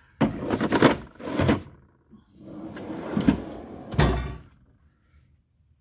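Metal tool chest drawers being moved on their slides, with tools rattling inside. There are short clattering bursts at first, then a longer slide about two seconds in that ends in a heavy thud about four seconds in as a drawer reaches its stop.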